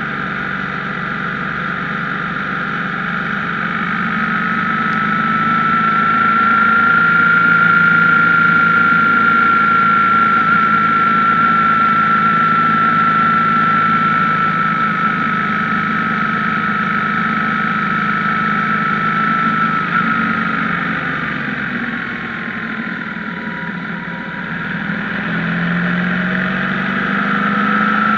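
BMW R1150GS flat-twin boxer engine running under way, with a high whine that climbs a few seconds in as the bike speeds up, holds steady, sinks around twenty seconds in as it eases off, and climbs again near the end.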